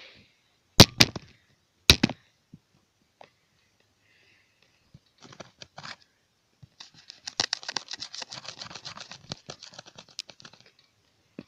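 A few sharp knocks close to the microphone, then several seconds of fast, dense crackling clicks and rustling.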